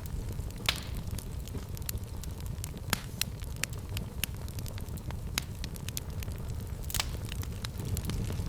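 Fire in a fireplace crackling over a steady low rumble, with many small snaps and a few louder pops.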